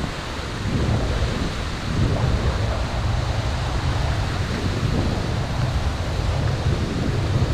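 Wind buffeting the camera microphone: a steady, fluttering low rumble under a broad rushing hiss.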